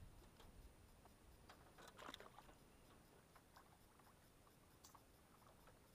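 Near silence, with a few faint clicks about two seconds in and a few more scattered later.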